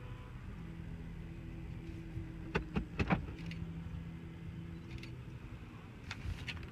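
Steady hum inside a car that starts about half a second in and stops near five seconds, with a few sharp clicks around the three-second mark and again near the end.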